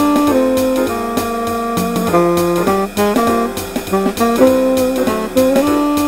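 Up-tempo Latin-feel jazz backing track with the bass part left out for practice: a saxophone plays the melody line in held notes over chord comping and a steady drum pulse.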